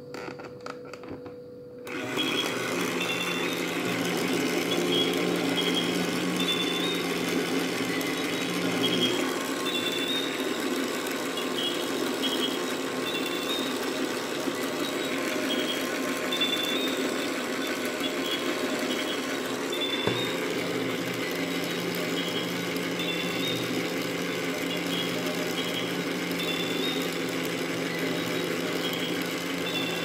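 Toy washing machine switched on with a couple of button clicks, then its small motor starts about two seconds in and runs steadily, turning the drum.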